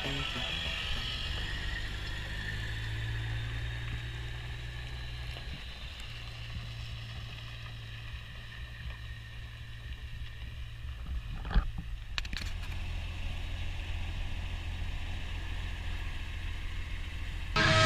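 A vehicle engine running steadily with a low hum, and two short clicks about eleven and twelve seconds in.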